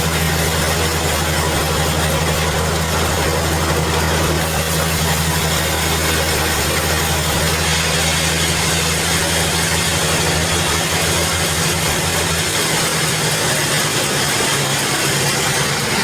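Sawmill band saw machinery running with a steady, engine-like low hum and a wash of noise. The lowest part of the hum drops away about twelve seconds in.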